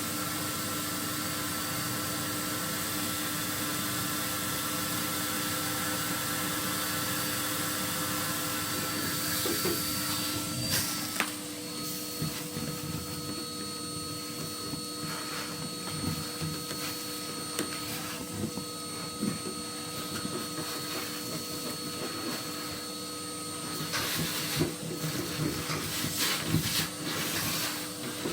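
Vacuum cleaner motor running steadily with a whine, its pitch shifting slightly about eleven seconds in. Scattered knocks and scrapes come over it, more of them near the end.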